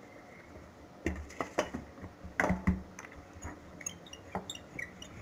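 Wooden rolling pin knocking and rolling on a stone countertop as a ball of paratha dough is rolled out, starting about a second in, loudest around two and a half seconds in, then lighter clicks.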